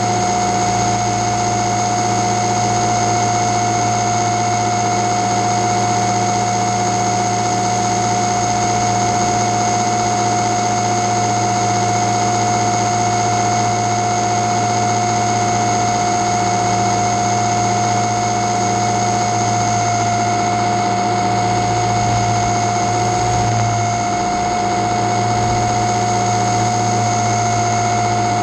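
Quadcopter drone's electric motors and propellers running with a steady whine, heard from the camera carried on the drone, the pitch wobbling slightly late on.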